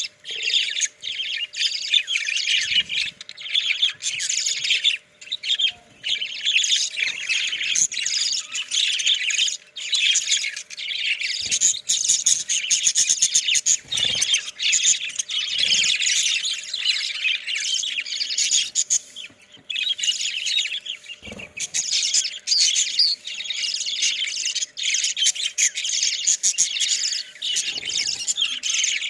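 A flock of budgerigars chirping and chattering continuously, many birds at once, with a few soft knocks here and there.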